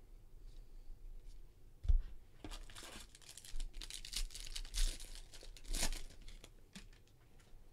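Foil trading card pack wrapper being torn open and crinkled by hand: a run of crackling rips over about three and a half seconds, loudest near the end. A soft thump comes just before.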